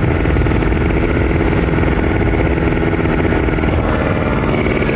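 Kawasaki Ninja RR 150's two-stroke single-cylinder engine running hard at a steady high pitch while the bike is ridden at speed, with wind rushing over the microphone.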